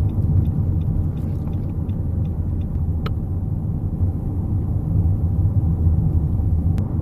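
Steady road and engine rumble inside a moving Nissan Qashqai J11's cabin, with light clicks from the driver's electric seat: a scatter of faint ticks over the first three seconds, then a sharper click about three seconds in and another near the end. The clicking is the seat fault that the owner is recording.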